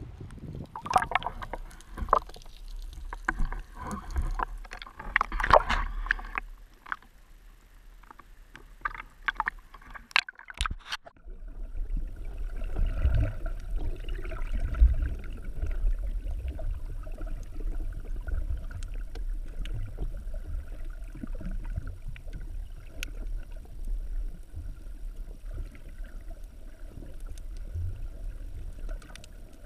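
Muffled underwater sound through a GoPro's waterproof housing: a steady low rumble of water moving past the case, with occasional faint ticks. Before it, about the first ten seconds hold clicks and rustling from gear being handled on the rocks above water.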